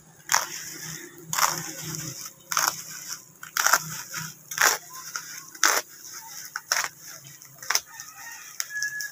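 Yellow snap-off utility knife slitting plastic bubble wrap, about eight sharp cutting strokes a second apart.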